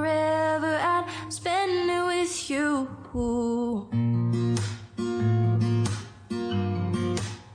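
Background song led by plucked and strummed acoustic guitar, with a sung melody in the first half and a short break about three seconds in.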